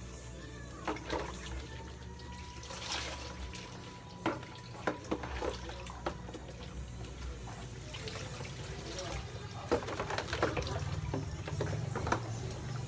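Water sloshing and pouring in plastic tubs and basins, with scattered sharp knocks of plastic containers being handled.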